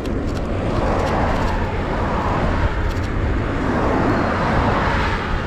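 Road traffic going past a moving bicycle, with a steady rush heavy in the low end and slow swells as vehicles pass.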